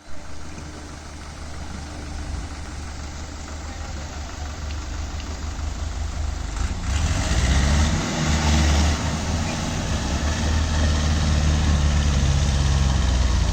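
Diesel tractor engine running at low revs, then revving up sharply about seven seconds in and holding at high revs.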